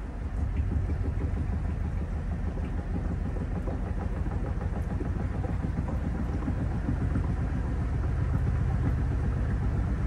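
Panasonic top-loading washing machine in its spin cycle: the tub spinning fast with the wet load, giving a steady low rumble that picks up about half a second in.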